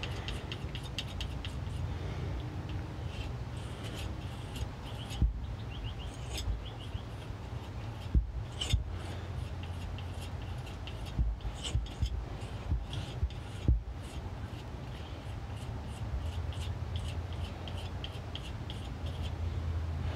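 Palette knife scraping and spreading Prussian blue and white paint on a marble slab, a run of fine scratchy strokes with several sharper taps of the knife on the stone around the middle. A low steady hum sits underneath.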